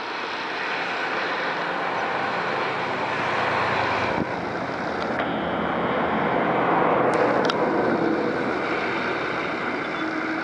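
Distant vehicle engines running: a steady rumble and hum that swells toward the middle, from the toy train and the buses on the hill road below.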